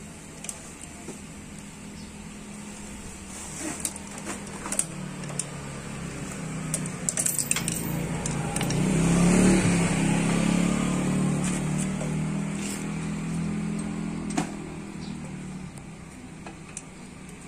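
A motor vehicle's engine passes close by, a steady hum that swells to its loudest about halfway through and then fades away. Light metallic clicks of pliers working on a small generator engine's parts sound throughout.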